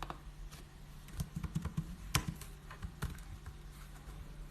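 Computer keyboard keys tapped irregularly while code is edited, with a quick run of keystrokes in the middle and a sharper click a little after two seconds, over a low steady hum.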